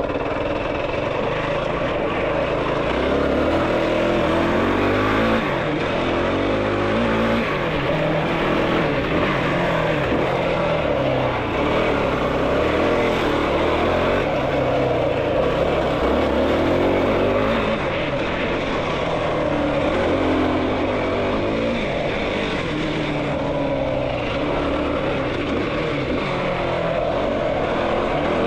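Yamaha YFZ450R sport quad's single-cylinder four-stroke engine running hard while the quad is ridden, its pitch rising and falling again and again as the throttle is worked.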